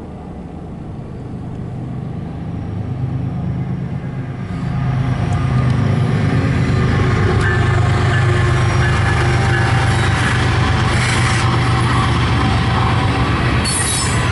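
Diesel locomotives of a loaded coal train approaching and passing, their low engine rumble growing louder over the first five seconds and then holding steady. Near the end, the loaded coal hoppers rolling by add wheel noise.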